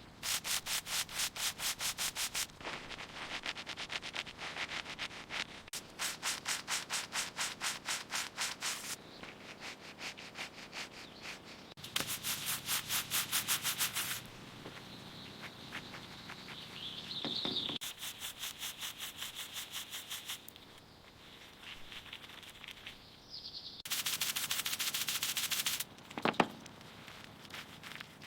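Rusty metal hinge being rubbed down by hand with an abrasive, in rapid back-and-forth strokes of about five a second. The strokes come in several bouts with short pauses between them. A thin, steady high tone comes and goes in the second half.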